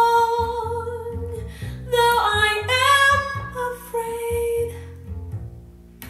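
A female vocal song played back through a pair of customized Yamaha NS-1000 loudspeakers: the singer holds long sustained notes over instrumental backing, and the music fades down near the end.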